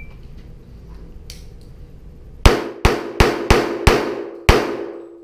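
Six pistol shots fired in quick succession, starting about two and a half seconds in. The last one comes after a slightly longer gap, and each shot rings off the walls of the indoor range.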